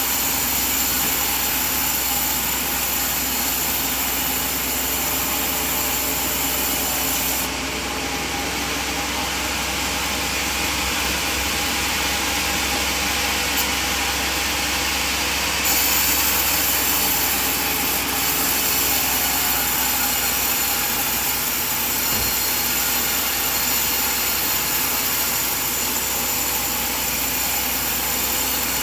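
Sawmill band saw cutting through a coconut log: a steady, loud rasping hiss of the blade over the drone of the mill's motor. The highest part of the hiss thins out about a third of the way in and comes back full a little past the middle.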